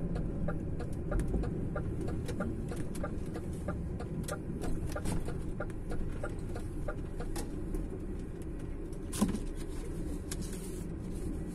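Inside a DAF truck's cab: the diesel engine runs with a steady low rumble while the turn-signal relay ticks about three times a second as the truck turns in. One sharper knock about nine seconds in.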